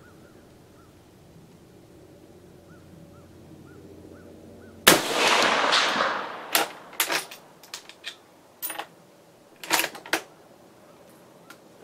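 A single shot from a 6.5x55mm Swedish M96 Mauser long rifle about five seconds in: a sharp crack that rings out for over a second. It is followed by a series of metallic clicks and clacks as the bolt is worked to eject the spent case.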